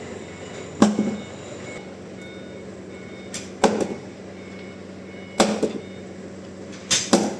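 Hammer blows, five sharp knocks at irregular intervals with the last two close together, each leaving a short low ring, over a steady low hum.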